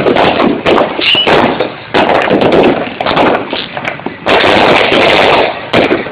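Many aerial fireworks going off at once: a dense, loud run of overlapping bangs and crackles, easing off briefly about two and four seconds in before building again.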